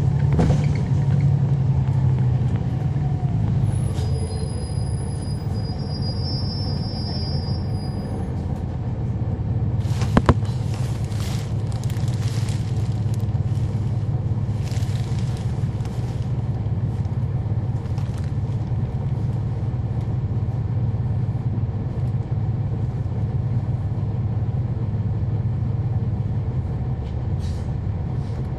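Inside a 2011 NABI 40-SFW transit bus, its Cummins ISL9 diesel engine running with a steady low drone. One sharp knock comes about ten seconds in.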